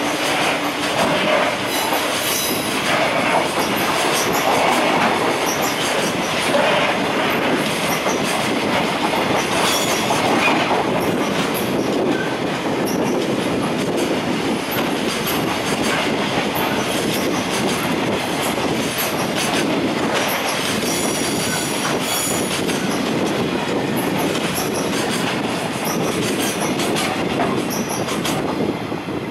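Freight train's container flatcars and tank wagons rolling past at speed: a steady rumble of wheels on rail, clicking over rail joints and points, with a brief high-pitched wheel squeal a little past two-thirds of the way through.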